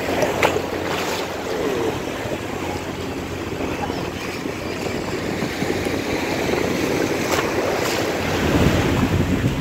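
Small sea waves washing in shallow water, with wind rumbling on the microphone and a few brief sharp clicks.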